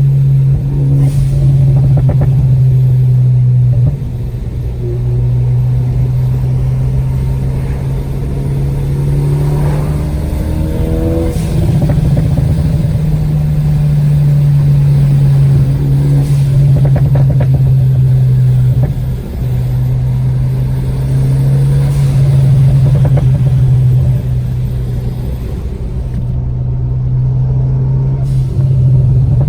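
Ford Focus ST's turbocharged EcoBoost four-cylinder engine through an aftermarket Cobb exhaust with a catless downpipe, heard while driving. It holds a loud, steady drone that drops away briefly several times as the throttle changes, with a few faint sharp pops or crackles among it.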